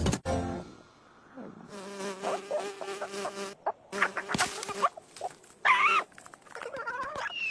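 Cartoon sound effects: a thump at the start, then a steady insect-like buzz lasting about two seconds, followed by short wavering squawks from a cartoon bird.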